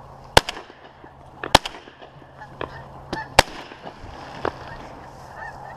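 Three shotgun shots fired at geese flying overhead, the second about a second after the first and the third about two seconds later, with fainter knocks between them. Geese honk briefly near the end.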